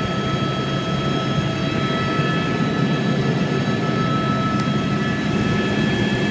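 Helicopter in flight heard from inside the cabin: a steady, loud rumble of engine and rotor with several constant high whining tones over it.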